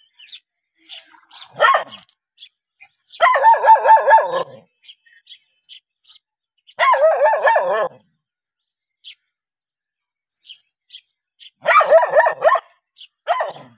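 A young tan dog barking in five bouts of quick, high barks separated by pauses of a few seconds, the longest run about a second and a half. Faint bird chirps sound in the pauses.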